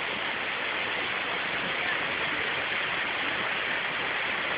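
Lotrișor waterfall: water pouring and splashing in a steady, unbroken rush.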